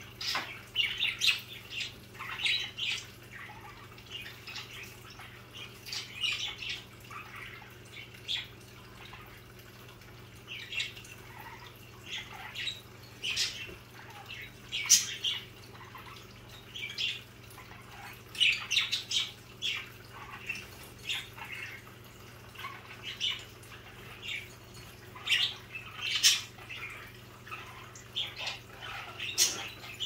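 Budgerigars chirping and chattering: a scatter of short, sharp calls throughout, over a faint steady low hum.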